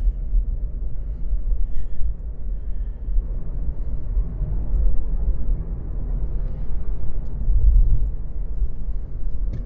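Low road and engine rumble inside the cabin of a moving vehicle, swelling a few times.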